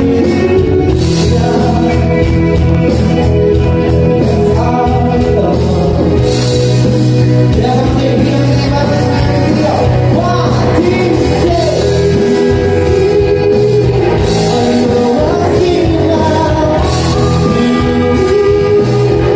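Live band playing a song with a lead singer over a steady beat.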